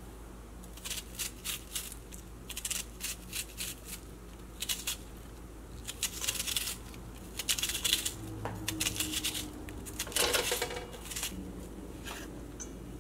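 Chopped red onion being scraped off a knife blade into a stainless steel mixing bowl: an irregular run of short scrapes, clicks and taps of the metal blade and the onion pieces against the bowl, a little louder around the middle and two thirds of the way through.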